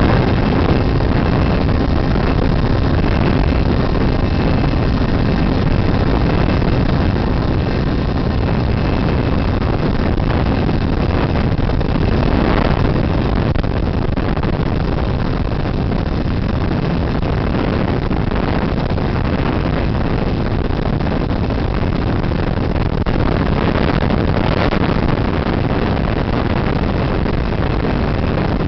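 Steady, loud rush of wind and propeller noise on an FPV model plane's onboard camera microphone in flight.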